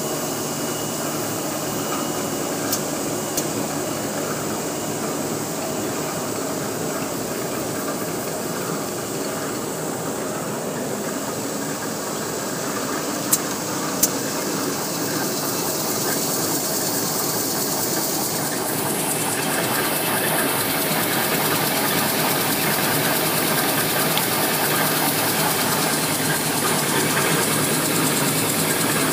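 Two-line automatic N/Z-fold hand towel paper machine running: a steady, dense mechanical whir and hiss with a few sharp clicks, growing louder about two-thirds of the way through.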